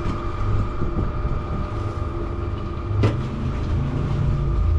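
Electric cement mixer running, its drum turning with a steady hum and low rumble, and one sharp knock about three seconds in.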